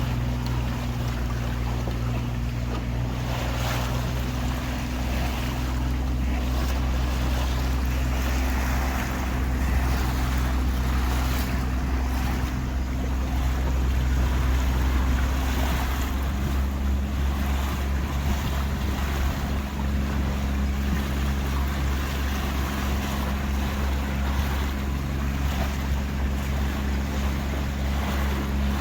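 A tour boat's engine running steadily under way, with water rushing against the hull and wind on the microphone. About halfway through, the engine's note shifts slightly.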